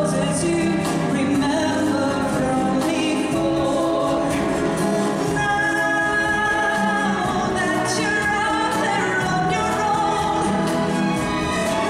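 A woman singing a melody with held notes into a handheld microphone, over live instrumental accompaniment.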